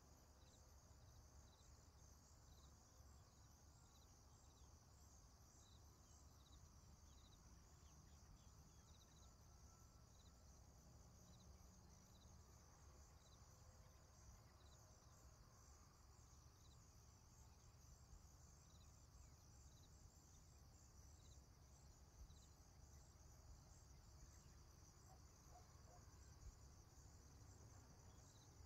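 Faint insect chorus: a steady high buzzing of dense pulses, with a separate short chirp repeating about once a second.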